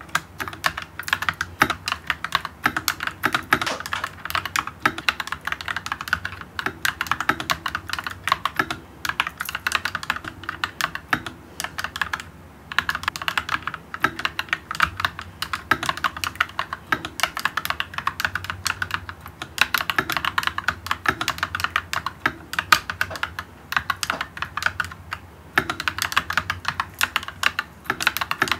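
Fast continuous typing on an Akko Kuromi 5108B Plus mechanical keyboard: a dense stream of key clicks, broken by brief pauses about twelve seconds in and again a few seconds before the end.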